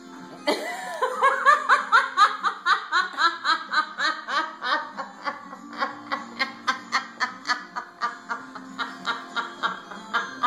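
A person in a long fit of hard laughter: a fast run of high-pitched 'ha' pulses, about four or five a second, starting about half a second in, loudest over the first few seconds and trailing off toward the end.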